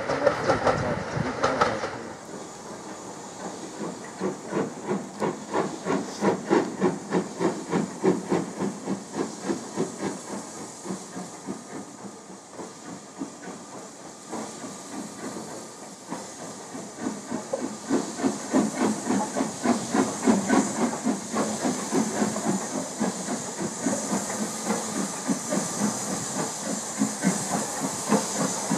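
LNER K4 three-cylinder steam locomotive starting a train: a rhythm of exhaust beats, about two a second, that eases off in the middle and picks up again, over a continuous hiss of steam. It opens with about two seconds of a train passing.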